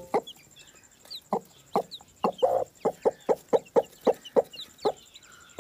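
Broody hen clucking in a quick series of short clucks that come faster through the middle, with faint high peeping from newly hatched chicks.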